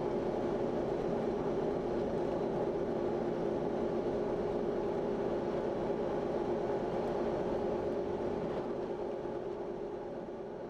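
1997 Land Rover Discovery on mud tires cruising at highway speed: a steady drone of road and engine noise with a hum held at one pitch, fading out near the end.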